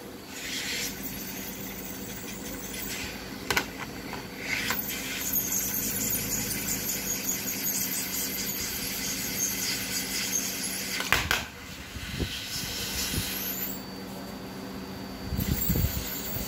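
Hot-air SMD rework station blowing through its nozzle onto a circuit board: a hiss of air that comes and goes, over a steady low hum, with a few sharp clicks, the loudest about eleven seconds in.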